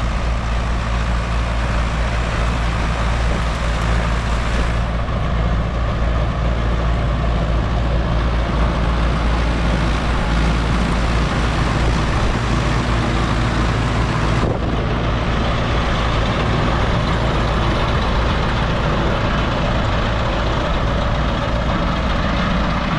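A vehicle engine running steadily at an even speed: a constant low hum with a broad hiss over it, and no change in pitch.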